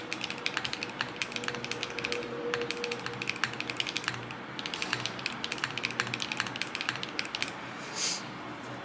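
Rapid, irregular clacking of typing on a mechanical keyboard, several keystrokes a second with short pauses. Near the end comes a brief swishing sound.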